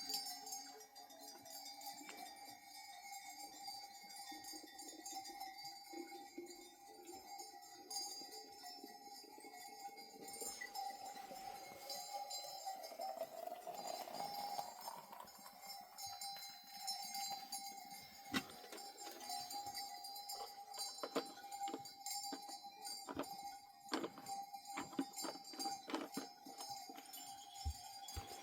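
Bells on a herd of goats and sheep clinking and jangling over a steady ringing tone, with the clinks coming more thickly in the second half.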